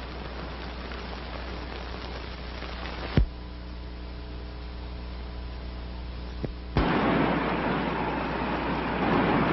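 Desert wind sound effect: a loud, even rushing hiss that starts suddenly about seven seconds in. Before it comes a fainter hiss, a sharp click about three seconds in, and a quieter stretch with a low steady hum.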